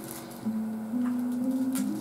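Background music: a slow melody of held notes, one after another, with two short crackles, one at the start and one near the end.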